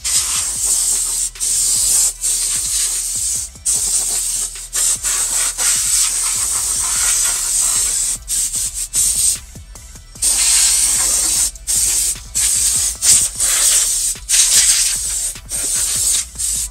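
Abrasive power tool grinding rust off the car's steel body panel, a harsh steady hiss broken by many short pauses as the tool lifts off the metal. It is cleaning up the rusted area to bare metal ahead of fitting a patch panel.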